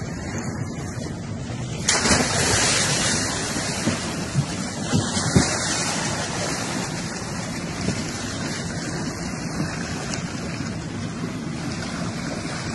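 Sea water splashing and churning, with a sudden loud splash about two seconds in as a swimmer goes into the water beside a surfacing whale shark, and wind buffeting the microphone.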